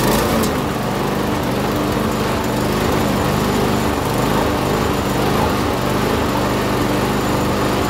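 Petrol walk-behind lawn mower engine, a small four-stroke, running loudly and steadily just after being pull-started.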